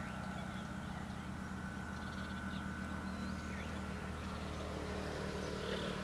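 Scattered short chirps and calls of wetland birds over a steady low hum and a faint, constant high whine.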